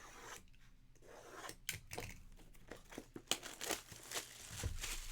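Packaging being torn open and crinkled by hand: a run of short crackling rips and rustles, typical of shrink wrap or foil card-pack wrappers.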